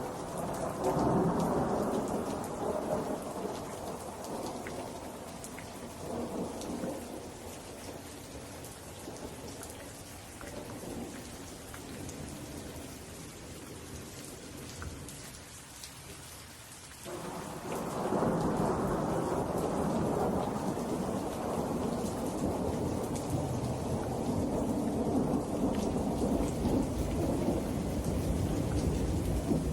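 Steady rain with rolling thunder. A long rumble at the start fades away over several seconds, and a second one builds sharply past the halfway mark and keeps rumbling.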